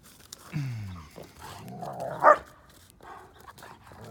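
A dog barking: a low call that falls in pitch about half a second in, then one loud, sharp bark a little past two seconds.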